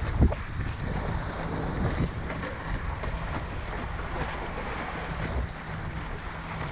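Wind buffeting the microphone over the rush of water along a windsurf board, with a low rumble throughout. A sharp knock about a quarter second in is the loudest moment, and a smaller one comes near two seconds in.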